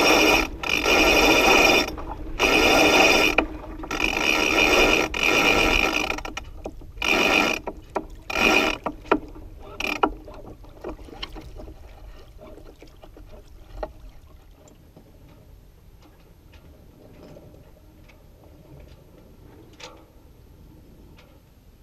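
Sailboat winch being cranked in about six bursts over the first ten seconds, its ratchet pawls clicking rapidly as a line is tightened. After that only faint scattered ticks remain.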